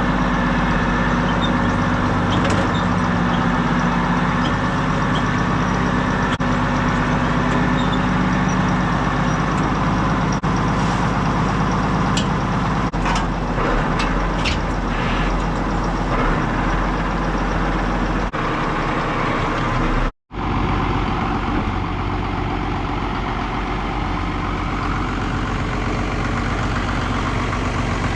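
Farm tractor's diesel engine running steadily. The sound drops out for an instant about twenty seconds in, then the engine carries on.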